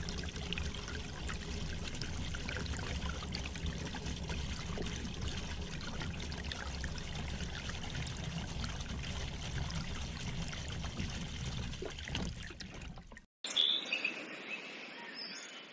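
Miniature borewell drilling rig running: a steady low hum from its small drive motor with water splashing and trickling around the spinning drill bit in the casing pipe. The sound cuts off suddenly about thirteen seconds in.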